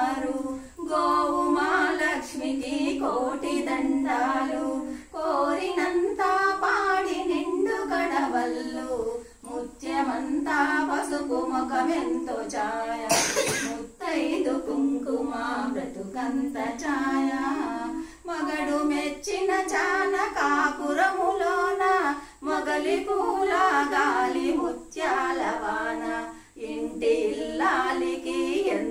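Women singing a traditional song unaccompanied, in phrases broken by short pauses for breath. A brief noise, like a cough, cuts in about halfway through.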